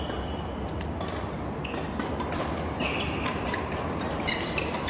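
Badminton rally: cork-based feather shuttlecock struck sharply by rackets again and again, with short high squeaks of shoes on the court floor.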